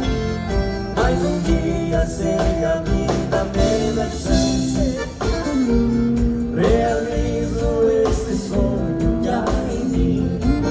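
A band playing an instrumental passage of a romantic song: guitar and a steady beat under a held, sliding melody line.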